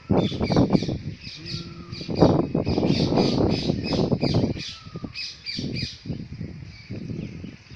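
Birds squawking in a fast series of short, harsh calls, about three or four a second, with chirps among them. A loud, rough low rumble runs underneath and is loudest about two seconds in.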